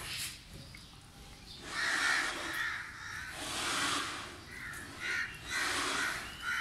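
Crows cawing repeatedly, a run of rough calls starting about two seconds in and continuing at short intervals.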